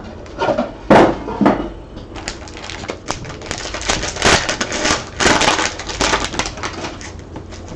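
Trading cards and pack wrappers being handled: irregular crinkling and rustling with scattered sharp clicks, a few louder bursts near the start and in the middle.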